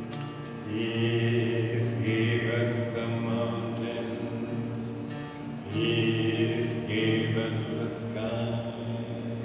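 A small choir singing a slow, chant-like devotional song in long held notes, over a steady instrumental backing.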